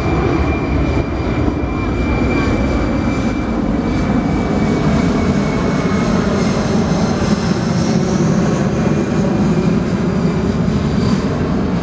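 Boeing C-17 Globemaster III's four Pratt & Whitney F117 turbofan engines running at high power in a steady, loud rumble, with a thin high whine that drifts slightly lower over the first half.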